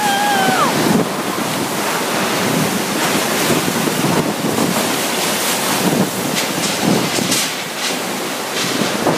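Typhoon-force winds of Super Typhoon Haiyan (Yolanda) blowing with driving rain: a loud, steady rushing noise with repeated gusts buffeting the microphone.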